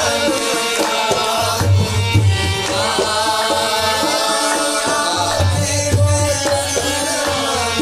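Qawwali music: tabla drumming with repeated deep bass strokes under a sung, gliding melody.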